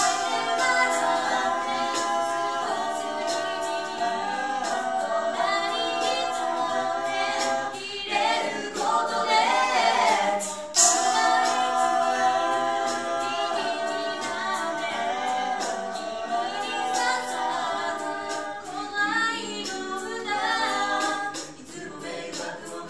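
A small mixed-voice a cappella group singing in close harmony, with sharp clicks keeping a steady beat under the voices. The singing thins and drops away near the end.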